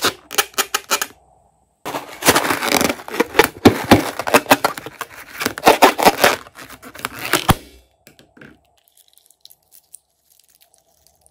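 A slime-filled rubber balloon squeezed and rubbed between the hands, giving a loud, dense crackling rubbing noise full of sharp clicks. There is a short stretch at the start, a brief pause, then about six seconds more, and only faint sounds near the end.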